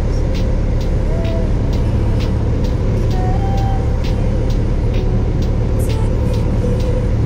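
Piston engine and propeller of a single-engine light airplane droning steadily, heard from inside the cockpit on final approach to land.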